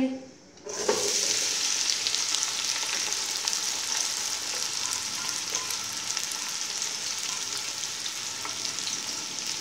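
Sliced onions dropped into hot oil: a sudden loud sizzle under a second in, settling into a steady frying hiss that eases slightly.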